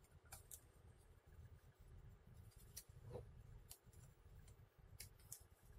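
Near silence: room tone with a handful of faint, scattered clicks.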